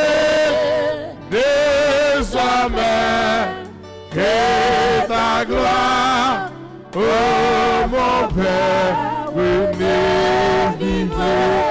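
Slow French worship hymn sung by a man into a microphone, long held notes in phrases with brief breaks between them.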